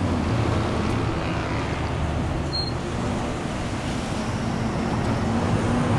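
Steady street traffic noise: passing cars with a low engine hum underneath.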